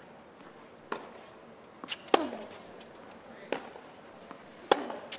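Tennis rally on a hard court: crisp racket-on-ball strikes about every second and a half. The loudest, ringing hits come from the near player, each just after a softer bounce of the ball, with quieter hits from the far end between them.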